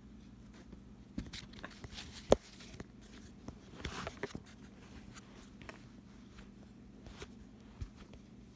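Handling noise from a phone held down at carpet level: scattered small clicks and rustles, with one sharp knock about two seconds in and a brief patch of scuffing against the carpet around four seconds.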